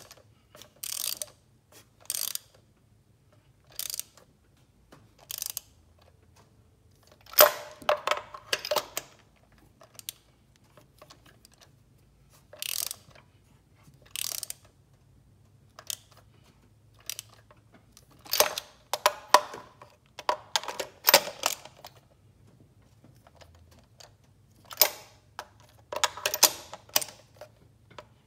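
Socket ratchet clicking in short, irregular bursts as new spark plugs are tightened.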